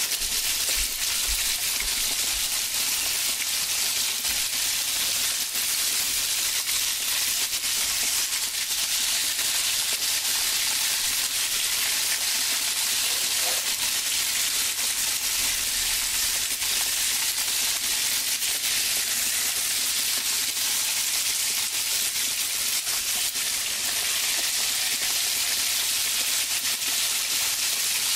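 Breaded pork cutlet frying in hot oil in a skillet: a steady, even sizzle throughout.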